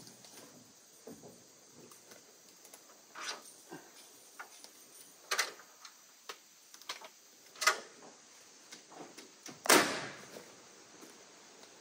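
A few separate wooden knocks and clunks from carpentry on board-and-batten wood siding, about two seconds apart, the loudest about ten seconds in.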